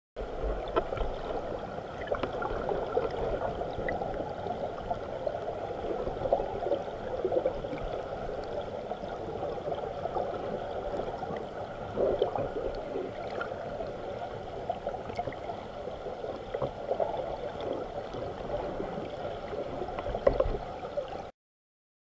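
Stream water churning and bubbling around a camera held underwater, heard muffled as a continuous gurgling rush with small surges. It cuts off suddenly near the end.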